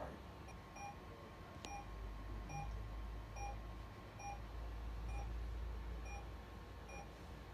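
Welch Allyn patient vital-signs monitor beeping steadily, a short pitched beep a little faster than once a second, the pulse tone that follows the heartbeat. A low hum runs underneath, and there is a single sharp click about two seconds in.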